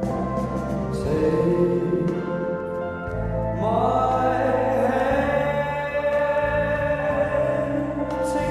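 An oldies song with a singing voice over sustained accompaniment, dulled and muffled as if heard through a wall from another room, with vinyl record crackle.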